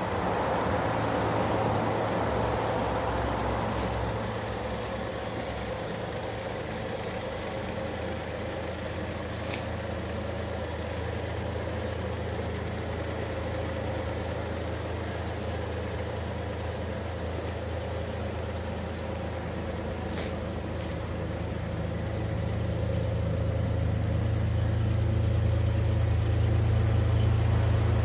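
Volkswagen Up!'s small 1.0-litre three-cylinder petrol engine idling steadily, growing louder over the last several seconds.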